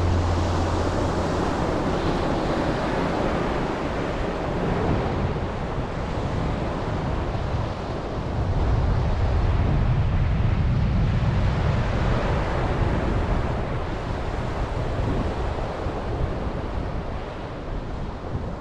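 Ocean surf washing up a sand beach, mixed with wind buffeting the microphone; the wind rumble is heaviest about halfway through.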